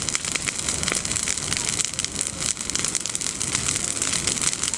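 Bonfire of freshly pruned, leafy olive branches burning, with dense fast crackling and popping over a steady hiss.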